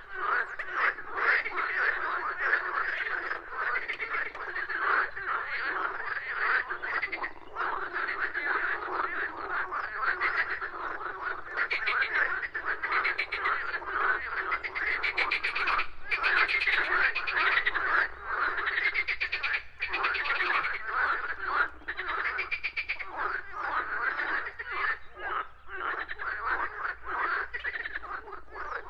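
A dense chorus of many frogs croaking at once, their rapid pulsed calls overlapping continuously with no pause.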